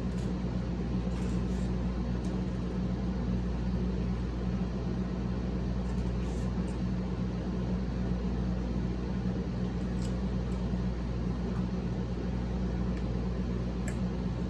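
A steady low machine hum, like a running fan or appliance, with a few faint clicks now and then.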